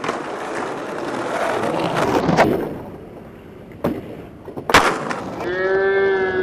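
Skateboard wheels rolling over stone paving, then a sharp pop and, about a second later, the loud clack of the board landing after jumping a set of stairs, and rolling on. Near the end a sustained pitched sound with sliding tones comes in.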